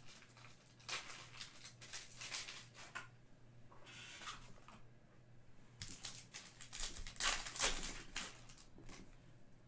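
Foil trading-card pack wrapper being crinkled and torn open by hand, in several separate bursts of crackling rustle, loudest about six to eight seconds in.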